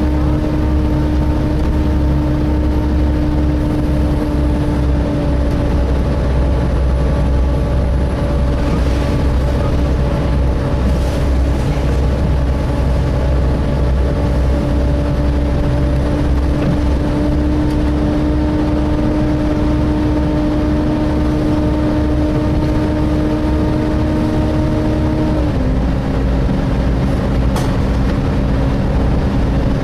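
Volvo B7TL double-decker bus's engine cooling fan whining steadily (the 'hoover' noise), over engine and road rumble heard from inside the bus. The whine drops slightly in pitch about 25 seconds in.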